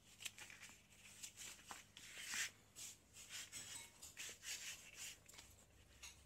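Faint, irregular rustling and scuffing of thin black leather pieces being handled and rubbed by hands.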